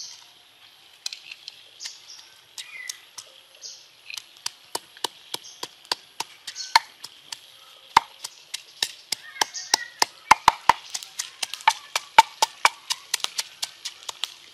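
Wooden pestle pounding red chillies and garlic in a wooden mortar: sharp wooden knocks, a few scattered ones at first, then a steady run of about three or four a second from about four seconds in.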